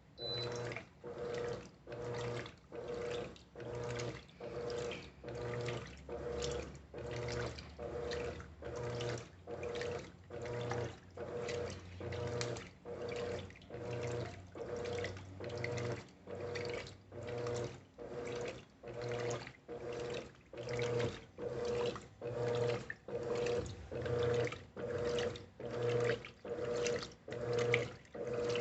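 Electrolux Essential Care LES11 top-loading washing machine agitating a tub filled to the high water level. It starts suddenly, and the motor hums as each back-and-forth stroke sloshes the water, a little more than one stroke a second.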